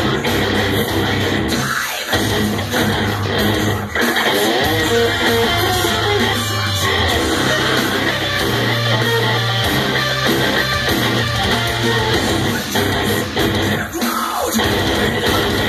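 Electric guitar played through an amplifier, a continuous heavy rock riff.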